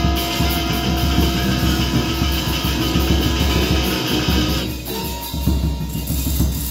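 Live band music led by an electric guitar, with drums. A bright hissing layer cuts out about two thirds of the way through, leaving the lower parts.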